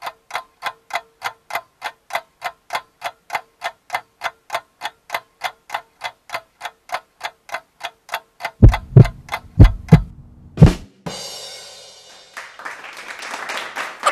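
Steady ticking, about three and a half ticks a second, for roughly nine seconds. Then five heavy drum thumps, followed by a crashing wash of cymbal and drums near the end.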